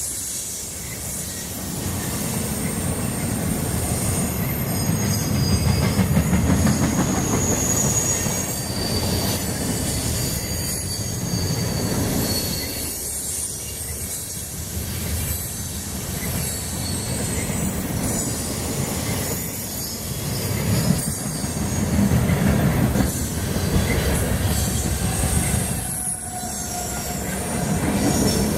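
Freight cars of a CSX intermodal train rolling past: a continuous low rumble that swells and eases as the cars go by, with high-pitched wheel squeal over it.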